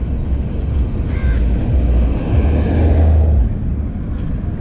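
Street ambience: a vehicle passes, rising and fading about two to three and a half seconds in, over a steady low rumble, with a short bird call, likely a crow, about a second in.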